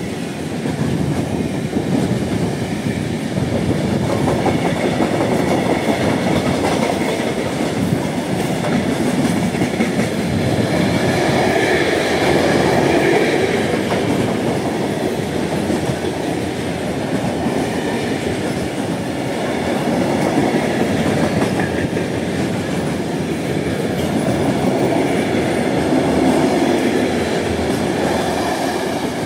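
Long freight train of flat wagons loaded with steel sections passing close by: a steady rolling noise of the wagons' wheels and bogies on the rails, growing a little louder around the middle and again near the end.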